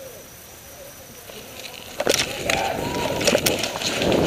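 Footsteps and rustling of grass and brush as a person runs along a woodland path, starting about two seconds in with irregular sharp footfalls over a growing swish of vegetation.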